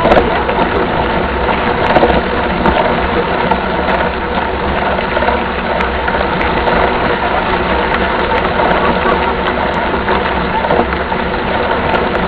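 A mountain bike being ridden on a trail: a steady, loud rattle and rumble of the bike and its tyres, with scattered small clicks.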